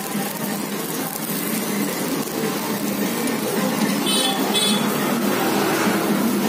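Street noise with a steady low hum, broken about four seconds in by two short, high-pitched horn beeps half a second apart.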